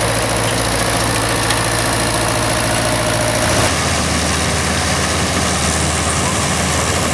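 Small vintage tractor's engine running steadily as it pulls a harrow through the field. After an abrupt change a little over halfway through, an old combine harvester's engine and machinery run steadily as it cuts wheat.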